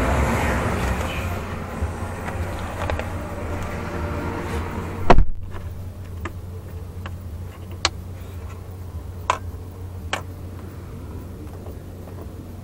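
The rear passenger door of a 2022 Toyota Fortuner is shut with one heavy thud about five seconds in, and the outside hum heard while it was open drops away. A few light clicks and taps follow inside the closed cabin.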